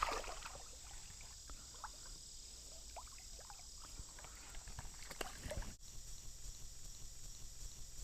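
Small splashes and lapping of water, scattered short sounds over a steady high hiss.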